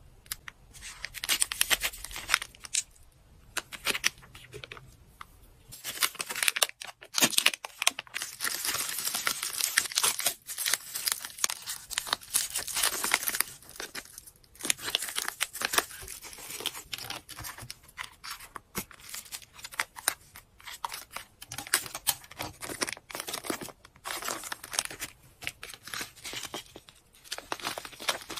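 Clear cellophane packaging bags and a bubble-wrap pouch crinkling and rustling in a busy run of crisp crackles as they are handled, loudest in the middle stretch.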